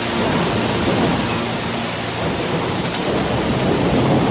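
Audience applauding and cheering loudly, breaking out as the music stops right at the start.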